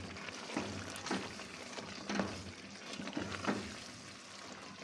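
A spatula stirring and scraping thick chicken curry in a pot, with a stroke every half-second to second over a low sizzle.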